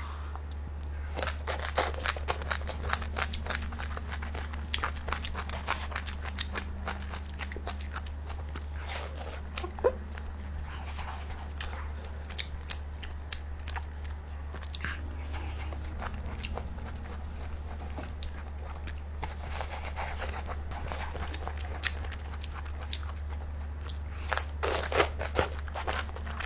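Close-miked eating: biting and chewing steamed H'Mong chicken, a dense run of short clicks and crunches, over a steady low hum.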